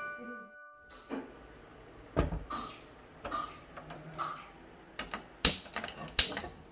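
Irregular knocks and clicks of kitchen utensils and cookware being handled, with a few sharper clacks about two, five and a half and six seconds in.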